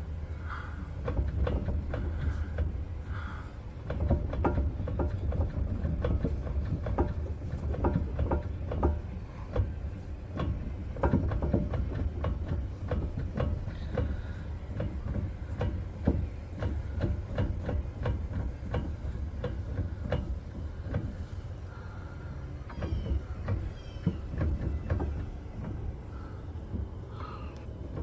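Pontiac Trans Am rear differential clunking and clicking irregularly over a steady low rumble. These are the questionable rear-end noises that suggest it probably needs a rebuild.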